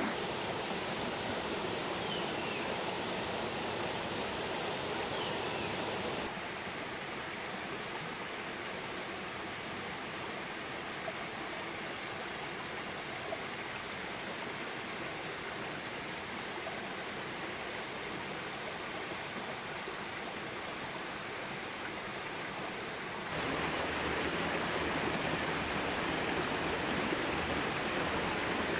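Flowing stream water rushing steadily. The level drops suddenly about six seconds in and comes back up suddenly near the end.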